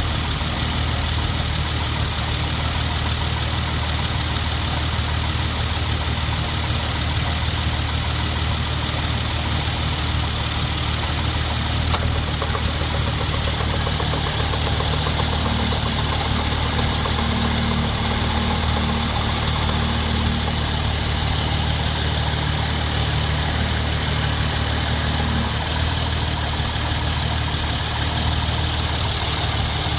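Hyundai Genesis Coupe 3.8 V6 idling steadily. About twelve seconds in there is a click, then a knocking sets in for several seconds before dying out. The owner takes the knock for a belt-driven accessory such as the A/C compressor rather than the engine itself.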